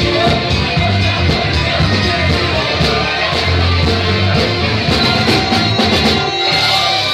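Live funk band with a horn section and lead singer playing at full volume over a driving bass and drum beat. The bass drops away near the end.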